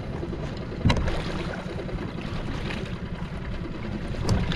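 A lobster pot being hauled up by its rope over the side of a small open boat, with a steady wash of wind and lapping water. There are two knocks, about a second in and near the end, the later one as the wet pot comes up against the boat's side.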